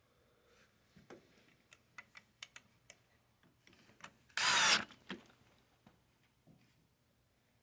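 Light clicks of small parts being handled, then a single half-second burst of a cordless screw gun driving a screw, with a small knock just after.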